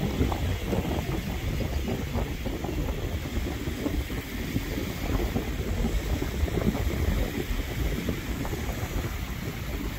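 Wind buffeting the microphone in uneven gusts, over small waves washing onto a sandy shore.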